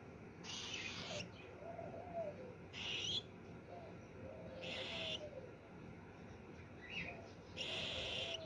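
A bird calling: low, arched coos repeated every couple of seconds, alternating with four louder, short hissing bursts.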